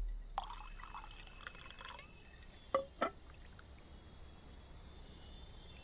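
Liquor poured from a bottle into a glass, a soft gurgling trickle for about the first two seconds, followed by two short clinks about three seconds in.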